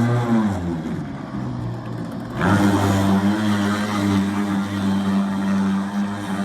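Boat engine easing off with falling pitch, then opening up again sharply about two and a half seconds in and running steadily at speed, with a rush of water and wind.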